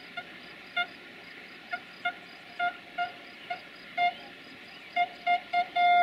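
Train horn on an approaching diesel multiple unit, sounding a string of short toots at one pitch and then a longer blast near the end. A steady high chirping of insects runs underneath.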